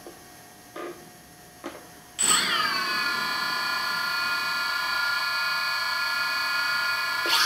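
The DJI Phantom 2's four brushless motors, with no propellers fitted, start about two seconds in. A brief falling whine settles into a steady, high, multi-toned whine as the motors run at idle.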